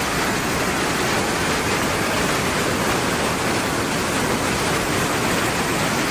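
Fast-flowing floodwater rushing, a loud, steady, unbroken noise of water.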